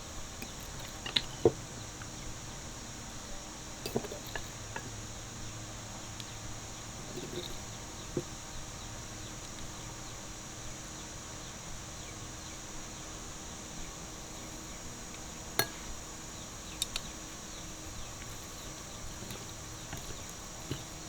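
A steady high insect chorus, with scattered light clicks and knocks; the sharpest come about a second and a half in and near sixteen seconds.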